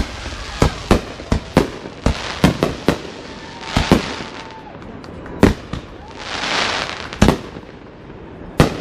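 Consumer fireworks going off: about fifteen sharp bangs at an irregular pace, several a second at times, with two longer hissing, crackling stretches, one about four seconds in and one past the middle.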